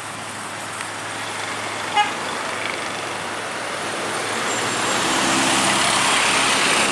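A minibus climbing the hill toward the listener and passing close, its engine and road noise building up over the last few seconds. A short horn toot sounds about two seconds in.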